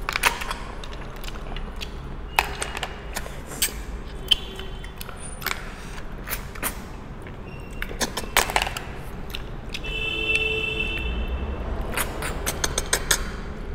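Cooked snails being sucked out of their shells: scattered sharp sucking slurps and the clicks of hard snail shells knocking on the bowls and plate, over a low steady hum.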